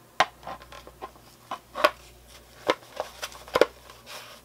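3D-printed PLA cowl pieces knocking and clicking as the cowl is pulled on over the head and its magnetized back piece is pressed into place: a string of sharp, irregularly spaced clicks.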